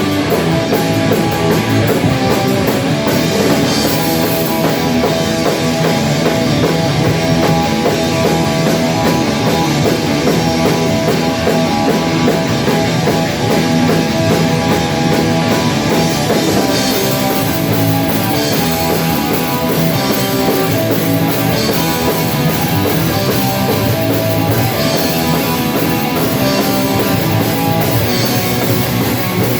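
A rock band rehearsing a song: distorted electric guitar over a drum kit with cymbals, played loud and continuously.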